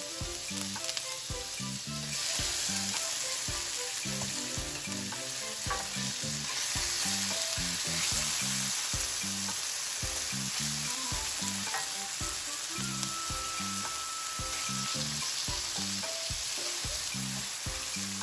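Sliced onions, scallions and green and red bell peppers sizzling in hot oil in a stainless steel skillet, stirred with a wooden spoon. The sizzle gets louder about two seconds in.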